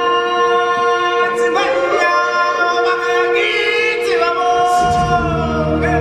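Choir singing long held notes, with a deep bass line coming in about five seconds in.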